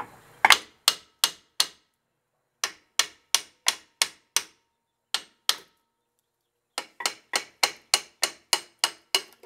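Hammer tapping on the top and bottom of a 2004 Chevy Astro's rear disc brake caliper to knock it loose from the rotor: sharp knocks in several short runs, about three a second, with a quicker run of about eleven taps near the end.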